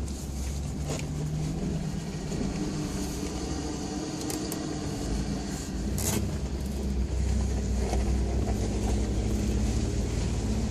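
Off-road 4x4's engine running steadily at low speed, heard from inside the cab while crawling a rutted dirt trail, with a few sharp clicks and knocks from the vehicle over the bumps. The engine gets a little louder past the middle.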